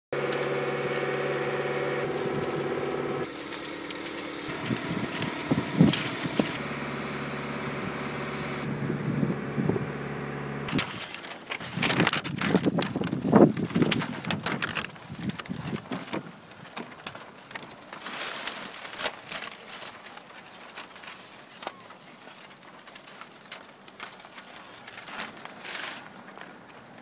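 A steady engine hum, likely the boom lift's, for the first eleven seconds or so, breaking off abruptly. After that, irregular rustling and crackling of paper stencil sheets being handled.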